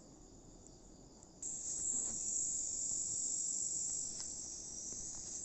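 Crickets chirping in a steady, high-pitched chorus that becomes much louder about a second and a half in.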